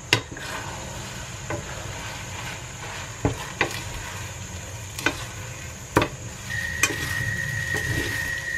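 Rice noodles and vegetables being tossed with a wooden spatula and a fork in a hot stainless steel frying pan, with a steady sizzle and a few sharp clicks of the utensils against the pan.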